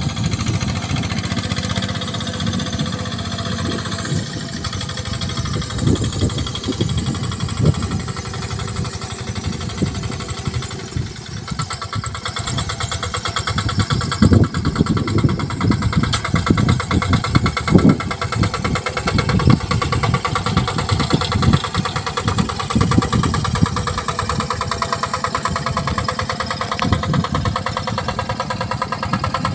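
Yanmar TF65R single-cylinder diesel engine of a two-wheel hand tractor running steadily under load as the tractor tills a muddy rice paddy, with irregular low thumps through the middle.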